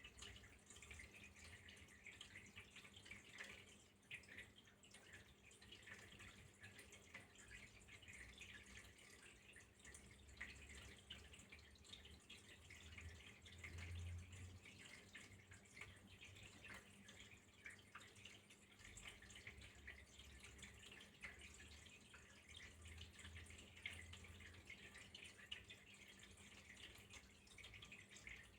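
Faint flowing water trickling and dripping steadily, a fine patter of small splashes, with a low rumble coming and going underneath.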